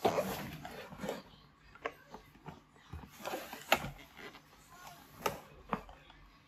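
A cardboard laptop box being handled and its lid lifted open: soft rustling and scraping of cardboard with several light knocks and clicks.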